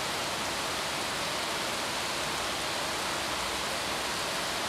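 A steady, even hiss of background noise, unchanging throughout.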